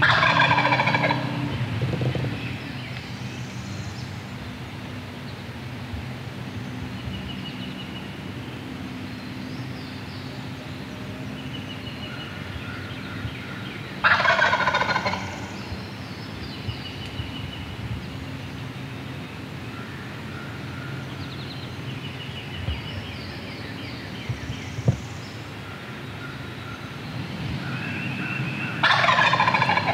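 Wild turkey gobbler gobbling from his roost in a pine tree, three loud gobbles about fourteen seconds apart, each lasting about a second and a half. Faint songbird chirps and a low steady hum between the gobbles.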